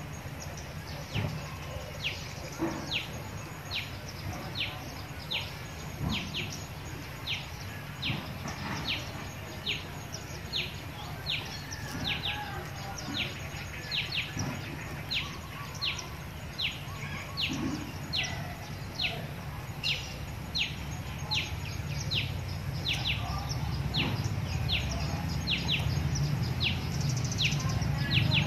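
A bird repeating a short, falling chirp over and over, about three calls every two seconds, over a low, steady background rumble that grows louder near the end.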